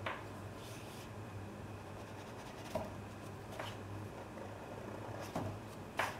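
Faint scrubbing and tapping of a stiff flat brush on wet watercolour paper, lifting paint, with a few soft clicks over a steady low hum.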